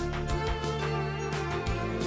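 Background music with sustained tones over a held bass and a steady beat.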